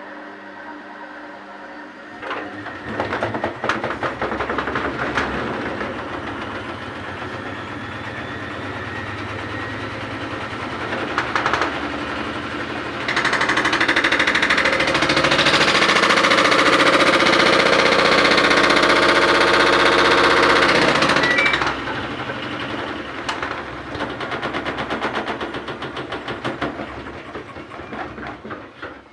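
Washing machine running with a load of wet towels, a loud, rapid, even rattling and churning from the drum. It grows louder about a third of the way in, holds, then drops back about three quarters through and fades near the end.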